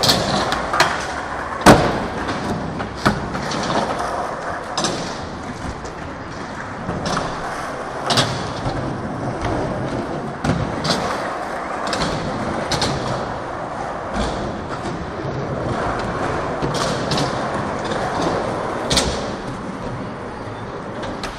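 Skateboards rolling on a concrete floor, with repeated sharp clacks and thuds of boards hitting the ground and a board sliding along a metal handrail. The loudest clack comes about two seconds in.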